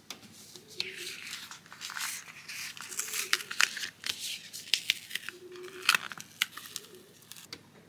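Plastic laminate sheet crinkling and tearing as it is handled by hand: an irregular run of scratchy rustles and small sharp clicks.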